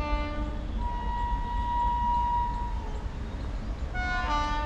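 WAG-9 electric locomotive's air horn sounding as the freight train approaches: a short low note, then a long steady higher note of about two seconds, and a brief blast of both tones together near the end, over a low rumble.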